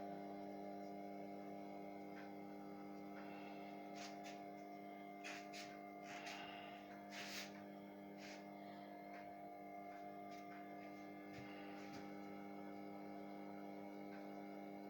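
Electric motor of a drill press converted into a sharpening machine, running with a steady hum. A few light scrapes or ticks come between about four and seven seconds in.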